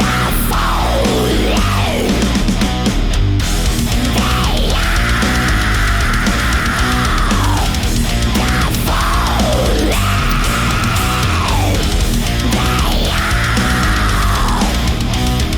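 Thrash metal song with distorted guitars and drums playing, a high lead line sliding down in pitch again and again.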